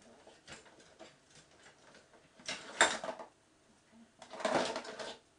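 Kitchen utensils clattering and rattling as a slotted spoon is picked out of a pot of utensils, with small clicks and two louder clatters, about three and four and a half seconds in.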